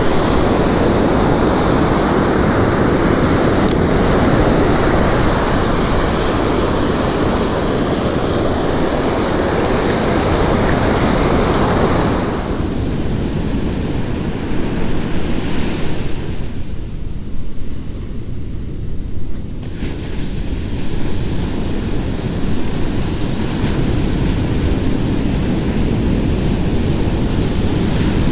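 Ocean surf breaking and washing up the sand, with wind rumbling on the microphone. About twelve seconds in the sound shifts, and for a few seconds in the middle the wash of the waves drops away, leaving mostly the low wind rumble.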